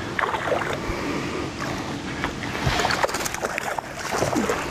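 A hooked bass thrashing and splashing at the water's surface beside a small boat, the splashes coming thick and fast in the second half.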